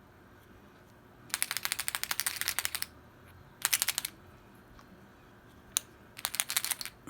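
A can that is said to be empty being shaken, giving a quick clicking rattle, about ten clicks a second, in bursts: a long one a second or so in, a short one in the middle, and another near the end.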